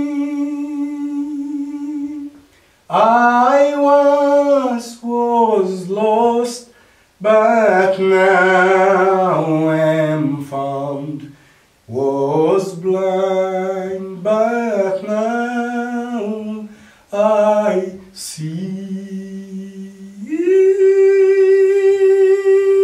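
A man singing unaccompanied, a slow melody in phrases with long held notes and a wavering vibrato, ending on a long steady note.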